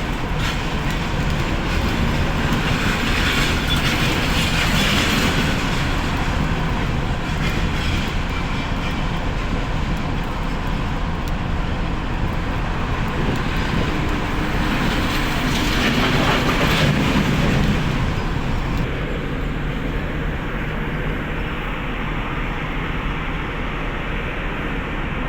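Steady rumble of heavy machinery working a cargo ship's discharge, with a low engine hum under broad mechanical noise. It swells louder twice, a few seconds in and again about two thirds of the way through, and turns duller near the end.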